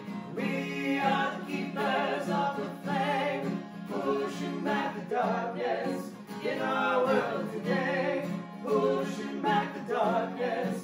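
Three voices, two men and a woman, singing a song together in harmony to a strummed acoustic guitar.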